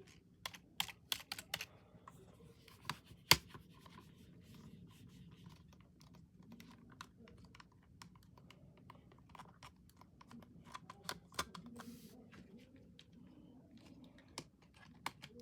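Computer keyboard being typed on: irregular keystroke clicks, a quick run of several in the first two seconds and one much louder clack a little over three seconds in, then sparser, softer keystrokes.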